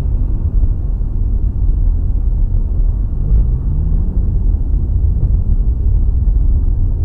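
Steady low rumble of a moving car's engine and road noise heard from inside the cabin through a dashcam microphone, with an engine note rising in pitch about three and a half seconds in as the car speeds up.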